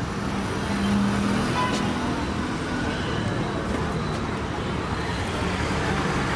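Steady roadside traffic noise, a continuous rumble of passing vehicles, with a low engine hum in the first few seconds and a few faint clicks.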